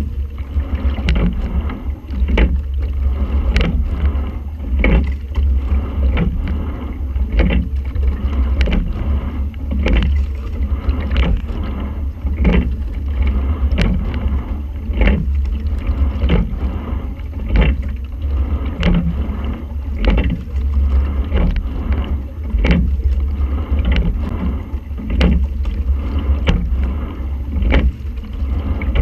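Quadruple scull being rowed: oar and oarlock knocks recurring in an even rhythm, a little more than once a second, over a steady low rumble.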